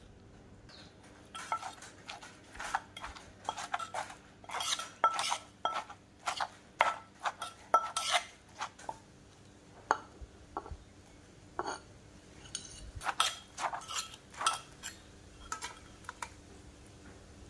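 A metal spoon clinking and scraping against a clay mortar as green papaya salad is tossed and mixed with a wooden pestle, in irregular runs of short clinks, some with a brief ring. Near the end the salad is spooned out of the tipped mortar.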